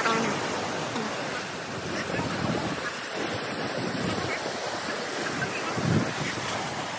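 Sea surf washing and breaking against rocks in a steady rush, with wind gusting on the microphone.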